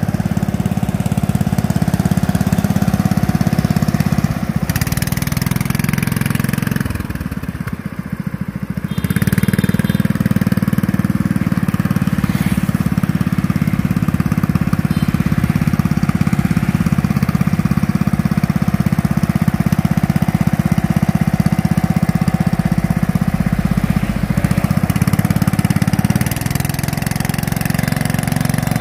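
Kawasaki 14 hp engine of a ride-on mower running steadily as the mower is driven along in gear. The engine sound drops off for a couple of seconds about seven seconds in, then picks up again.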